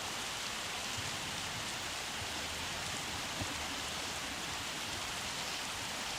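Steady, even hiss of water with no distinct events.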